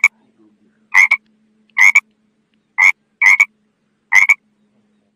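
A frog calling: six short, sharp, double-noted croaks, about one a second, over a faint steady hum.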